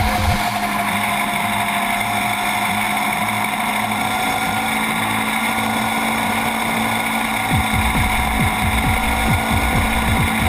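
Motorcycle engine running at steady revs while the bike is under way, its note sinking slightly; a low gusty wind rumble on the microphone drops away early and comes back about seven and a half seconds in.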